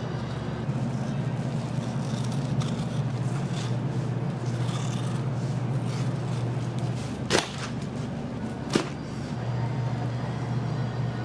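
Kitchen working noise at a barbecue grill: a steady low hum under light scraping and clatter, with two sharp knocks about a second and a half apart.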